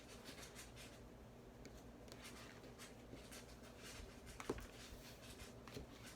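Near silence with faint, scattered rustling and one soft tap about four and a half seconds in, the kind of small handling noise of cards or objects on a table.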